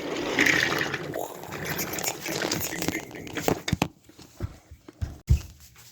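Wooden toy trains knocking and clacking on wooden track. A noisier stretch comes first, then a run of separate sharp knocks in the second half, the loudest about five seconds in.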